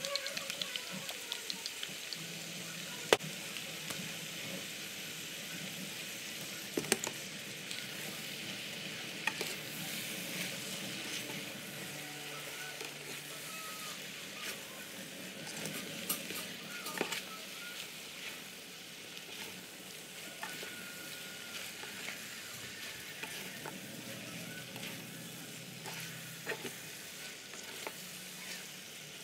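Wide rice noodles with chicken and greens sizzling in an electric skillet as two spatulas stir-fry them, with scattered taps and scrapes of the spatulas against the pan.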